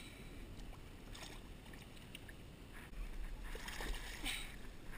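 Splashing in shallow water as a released carp kicks away from a hand at the bank's edge. A faint splash about a second in, then a louder run of splashes from about three seconds in.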